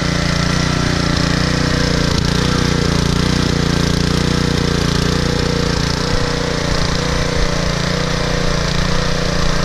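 Troy-Bilt Super Bronco tiller's 208cc single-cylinder engine running steadily. It runs smoothly on old gas now that its clogged carburetor jet has been cleaned.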